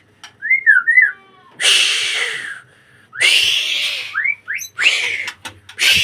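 White-rumped shama singing loudly: a few clear whistled notes, then a run of harsh, rasping bursts about a second long each.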